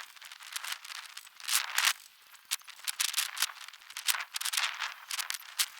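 Small metal goal-assembly hardware (bolts, washers, nuts and brackets) clinking and rattling as it is handled and fitted to the aluminium frame, in an irregular run of short clicks.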